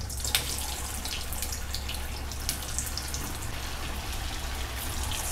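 Hot oil in a kadhai sizzling steadily with scattered crackles as vadas of grated idli and besan batter are slid in and deep-fry.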